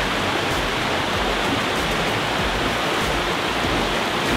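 Steady rushing of flowing water, a stream running under a footbridge.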